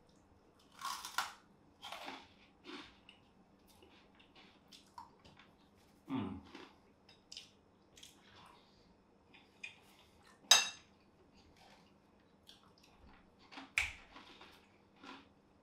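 Eating at the table: crunchy bites of crisp fried toast sticks with small crackles, and a metal fork clinking sharply once on the plate about ten seconds in, with soft chewing in between.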